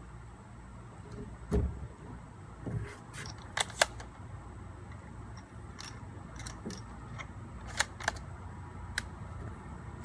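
A soft thump, then a handful of sharp mechanical clicks spread out irregularly, two of them in quick succession about three and a half seconds in: a bolt-action rifle being handled and readied before firing.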